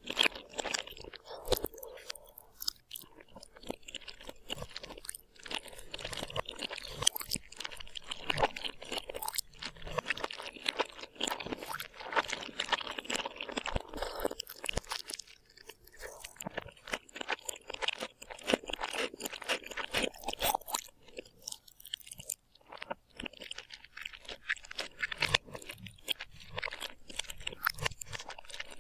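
Close-miked crunching and chewing: a person biting into and eating crunchy food, many sharp crunches in quick runs with brief pauses between.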